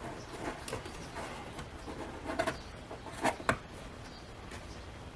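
Insulated wires being handled, twisted and hooked over a screw in a piece of wood: light rustling with a few short clicks, two of them close together a little over three seconds in.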